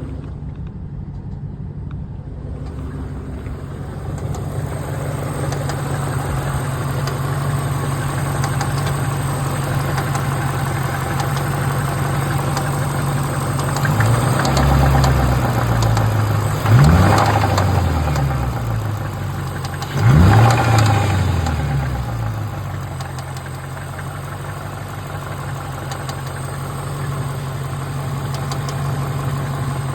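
Car engine idling with a ticking noise whose cause is unknown. It is revved briefly twice near the middle, the pitch rising and falling back each time, before settling to idle again.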